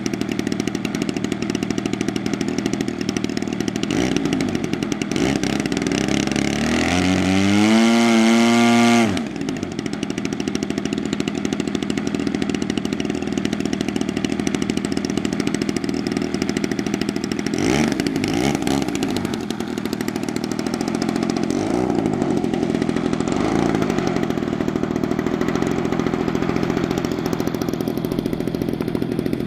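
Engine of a large-scale RC Extra 300 model aeroplane running at idle with the propeller spinning. About six seconds in it revs up, rising steadily in pitch, then drops sharply back to idle about three seconds later, with a short blip of throttle near the middle.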